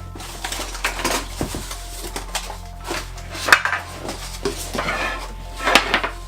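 Metal clinks, knocks and rustling as an unboxed circular saw and its loose blade are handled, with two sharper clanks about three and a half and nearly six seconds in.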